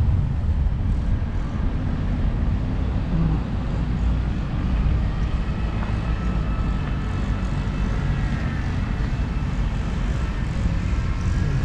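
Outdoor ambience: a fluctuating low rumble of wind on the microphone, with a faint steady engine drone underneath that grows a little clearer in the second half.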